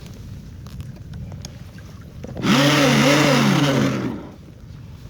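Nikko Torpedo RC boat's 9.6-volt electric motor revving up and down twice in quick succession, with a loud rushing noise, for about a second and a half midway.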